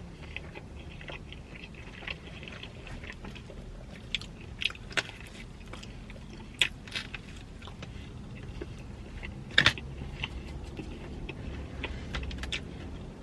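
Close-up mouth sounds of a person chewing and biting into pepperoni pizza: irregular wet clicks and small crunches, a few louder ones along the way, over a low steady hum.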